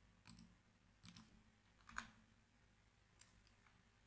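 Near silence with about four faint computer-mouse clicks, spaced roughly a second apart.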